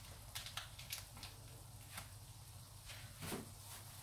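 Faint soft squishes and a few light clicks as tomato paste is squeezed from a tube into a wok, over a low steady hum.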